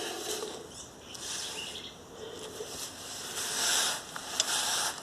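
Rustling and scraping of hand tools and metal parts being handled, with two longer scraping swells and a couple of faint clicks near the end.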